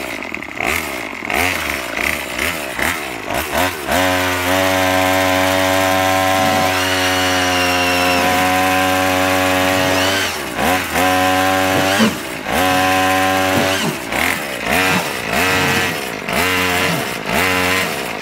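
Gasoline string-trimmer engine driving a homemade propeller in a tub of water. It revs in short bursts, is held at high revs for about six seconds, then revs in bursts again.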